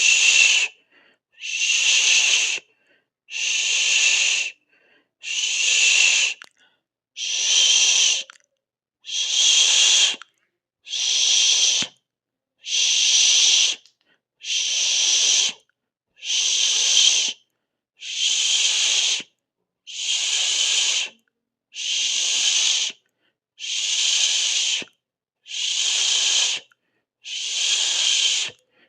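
A person hissing through the mouth in even, repeated pulses, each about a second and a half long with a short silence between, about one every two seconds.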